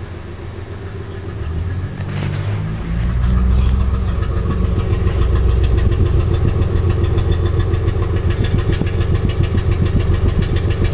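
Nissan Pathfinder's 4.0-litre V6 idling with a steady pulsing beat, running on five cylinders: number 5 is misfiring. It grows louder over the first three seconds, with a short knock about two seconds in.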